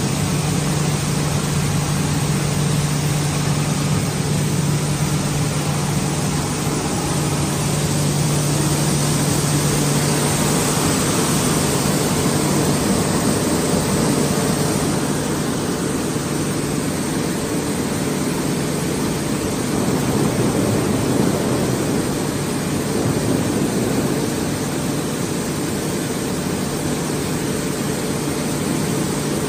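Fortified rice production line machinery running: a steady, loud mechanical noise with a low hum that weakens about halfway through.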